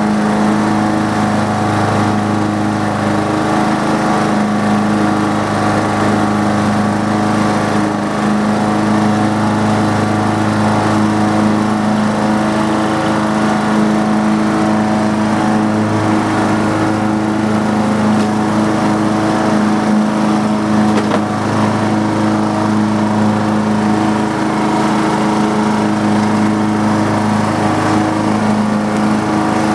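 Riding lawn mower's Briggs & Stratton engine running steadily under mowing load, a constant drone with no change in speed.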